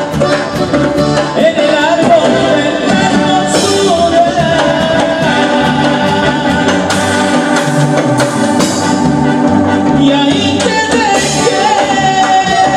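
Tierra Caliente regional Mexican band music with singing over a steady bass beat.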